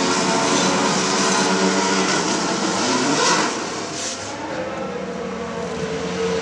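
Formula One car's 1.6-litre turbocharged V6 engine running steadily at low revs. A couple of short hissing bursts come a little past halfway, and the sound drops somewhat just after them.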